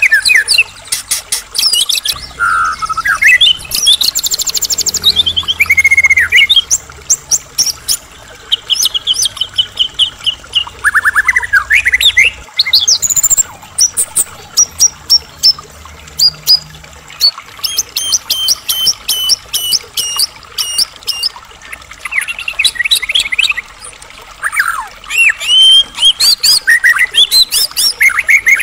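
White-rumped shama (murai batu) in full song: a long, varied run of rapid trills, repeated clipped notes and rising and falling whistles with short pauses between phrases.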